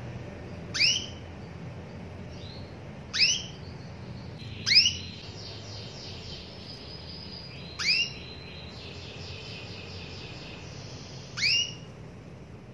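Female canary giving five loud, short calls a few seconds apart, each a quick upward sweep: the call a hen canary uses to summon a male. Softer, rapid twittering runs between the middle calls.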